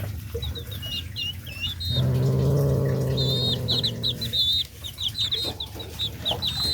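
Cat giving a long, low, steady yowl for about two seconds, starting about two seconds in. High, quick bird chirps run throughout.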